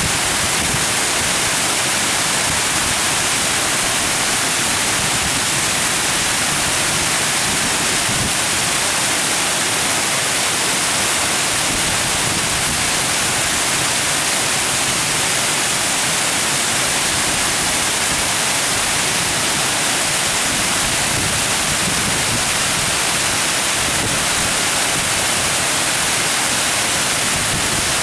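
Water pouring over a stepped weir, a steady, even rush with a strong hiss.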